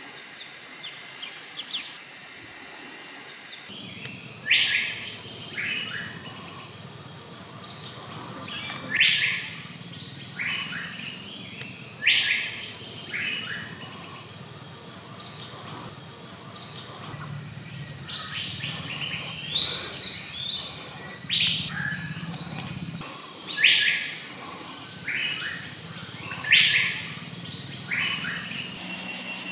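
Forest ambience: birds calling with short, sharp notes repeated every few seconds over a steady, rapidly pulsing high insect chorus. It all gets louder about four seconds in.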